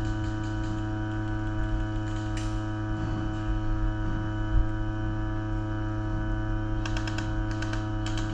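A steady electrical hum with a stack of overtones, carried by the recording itself. About seven seconds in comes a quick string of sharp clicks, airsoft gun fire.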